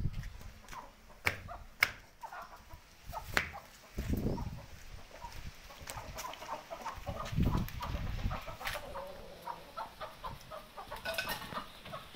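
Aseel chickens clucking in short, rapid notes, busiest in the second half. Scattered sharp clicks and a couple of low thumps sound among them.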